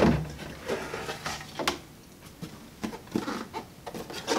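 Plastic clicking, knocking and rustling as packing clips and a clear plastic packing piece are worked loose and pulled out from inside a 3D printer's enclosure. There is a sharp click at the start, then scattered knocks, growing busier near the end.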